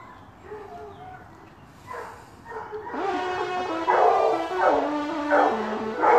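A pack of hunting hounds baying, many voices overlapping in long pitched cries, faint at first and much louder from about three seconds in.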